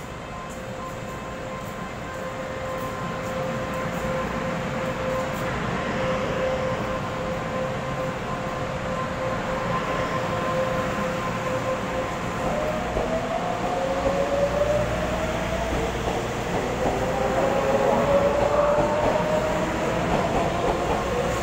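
EMU500 electric multiple unit pulling out of the station with its traction motors whining. The whine holds one pitch at first, then several tones climb steadily in pitch as the train gathers speed, growing louder throughout.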